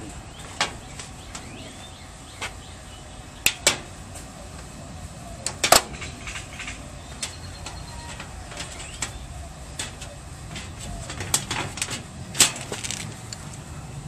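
Scattered sharp clicks and snaps of hand cutters working through a washing machine's power cord, along with knocks from its metal back panel being handled. The loudest snap comes about six seconds in.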